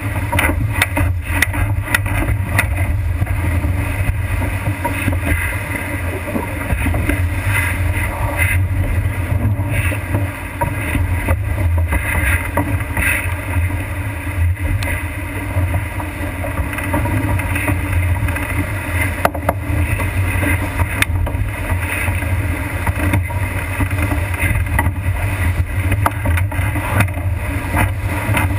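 Wind rumbling on the microphone over rushing water and spray along the hull of a sailboat heeled over and sailing fast in rough water, with frequent short, sharp hits.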